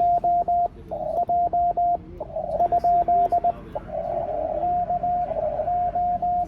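Morse code tones near 700 Hz keyed in quick dits and dahs from an amateur radio transceiver. Between the runs of code comes the hiss of the receiver through its narrow CW filter.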